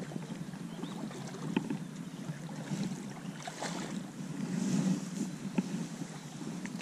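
Water lapping around a small boat with wind buffeting the microphone, and a few light knocks.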